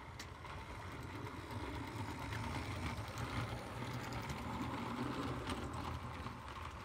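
Small electric motor and wheels of a toy Christmas train running along its track. It grows louder as the train passes close and then eases off, with light clicks throughout.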